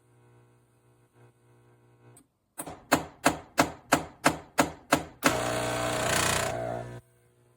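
Philips 3200 Series espresso machine making its repeating fault cycle: about eight sharp bangs, roughly three a second, then a loud steady buzz of under two seconds that cuts off suddenly. The machine keeps repeating this cycle instead of brewing.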